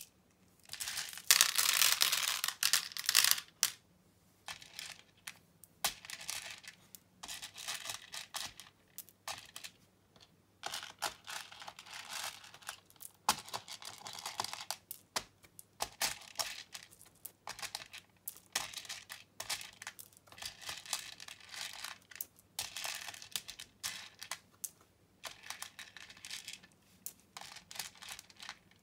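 Plastic pony beads clicking and rattling as hands sift and scoop through a loose pile of them on a plastic organizer and let handfuls fall into its compartments. The sound comes in irregular spells of a second or two, and the loudest comes about a second in.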